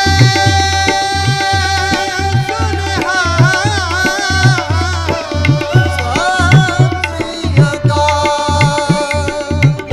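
Instrumental passage of Gurbani kirtan: tabla keeps a steady rhythm of low strokes under held and wavering melodic notes from the bowed taus, with the plucked rabab.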